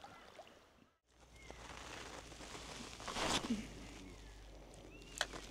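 Quiet outdoor ambience with faint short chirps. A brief louder noise comes a little past the middle. The sound drops out for an instant about a second in.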